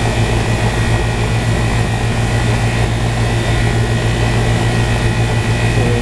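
Rooftop air-conditioning unit running: a steady mechanical drone of fan and compressor, with a strong low hum and a thin high whine.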